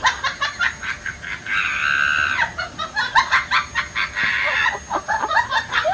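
Cat making a rapid string of short chirping calls, several a second, some sliding upward, with one longer call held for about a second around a second and a half in.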